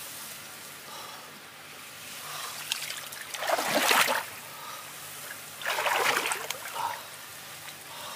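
Hands splashing and sloshing in shallow muddy water, with two louder bouts of splashing about three and a half and six seconds in.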